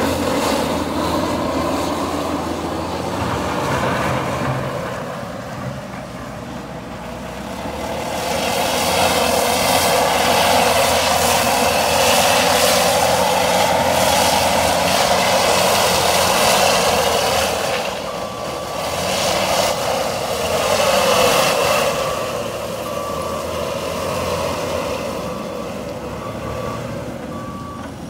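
Large Caterpillar wheel loader's diesel engine running under load, revving up and down in long swells as it digs and moves. In the second half a reversing alarm sounds in short, regular beeps.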